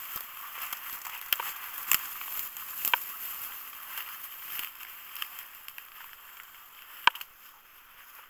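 Tall dry grass and weeds rustling and crackling as someone pushes through on foot, with a few sharp snaps of stems, the loudest about seven seconds in.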